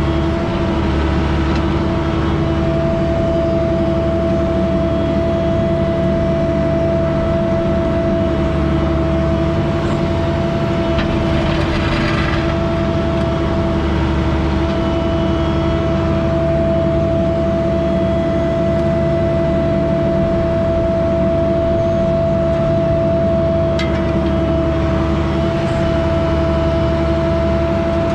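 Diesel heavy-equipment engine running at a steady speed, with a constant whine over a low hum that holds unchanged throughout.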